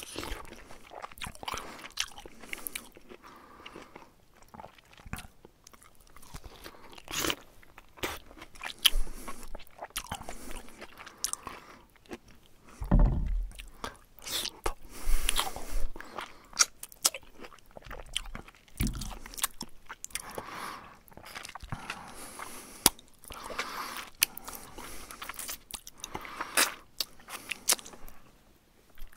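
A bear chewing and crunching food, with irregular wet crunches and mouth smacks, and a heavier low thump about halfway.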